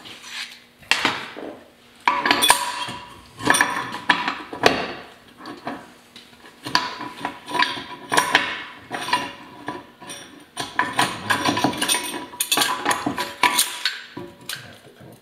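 Steel gears and synchronizer parts of an old Ford synchromesh transmission clinking and clattering against each other and the transmission case as they are fitted together by hand. The knocks come irregularly, some with a short metallic ring.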